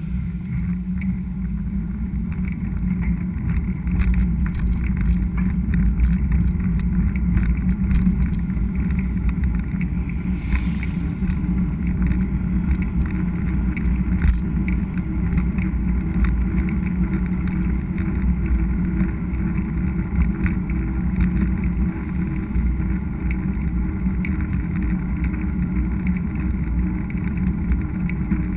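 Steady low rumble of a mountain bike in motion, recorded on the rider's action camera: wind on the microphone and tyres running over the trail, with frequent small rattles and clicks.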